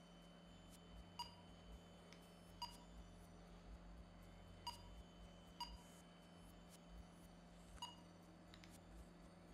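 Five faint, short electronic beeps at uneven intervals from a GoFly paragliding flight instrument's beeper, with a few faint ticks between them.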